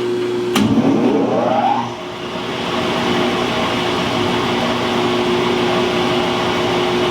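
Metal shaper's electric motor switched on with a click, its whine rising as it comes up to speed, then running steadily.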